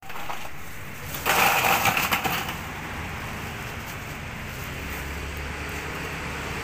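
Clear plastic bag rustling and crinkling as it is handled and pulled out of a plastic bucket, loudest for about a second near the start. After that a steady low hum carries on.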